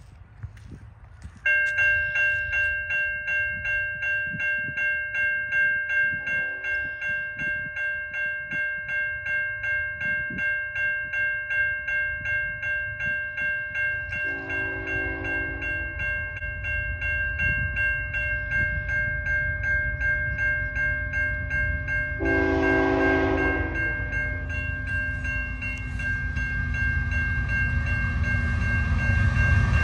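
Level-crossing warning bell starting about a second and a half in and ringing steadily, while CN GEVO 3292's K5HL five-chime horn sounds three blasts, each louder than the last, as the approaching freight train's rumble grows.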